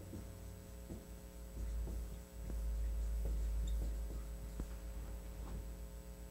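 Dry-erase marker writing on a whiteboard: soft, irregular taps and strokes as the letters are drawn, over a steady low hum. A low rumble swells in about a second and a half in and fades about a second and a half before the end.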